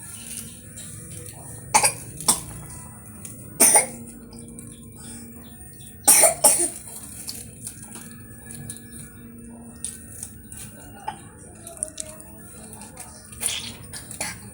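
Coughing brought on by an iced drink, in short fits: two coughs about two seconds in, one near four seconds, two around six seconds, and two more near the end.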